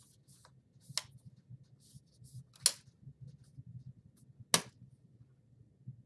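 Plastic bottom cover of a Lenovo ThinkPad T460s snapping onto the laptop's base as it is slid and pressed into place: three sharp clicks about a second and a half to two seconds apart, with faint scraping between them.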